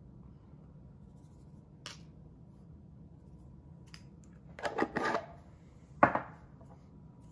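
Salt shaken from a glass shaker with a steel lid into a bowl: a faint tap about two seconds in and a short rattling shake just before the five-second mark, then one sharp knock, the loudest sound, about six seconds in.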